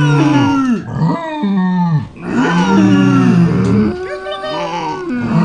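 Several farm animals calling at once, many overlapping low pitched calls that bend in pitch and break off, with brief lulls about one and two seconds in.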